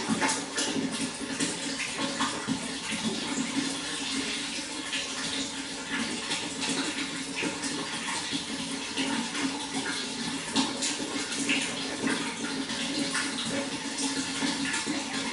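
Running water splashing and trickling steadily, with many small splashes throughout.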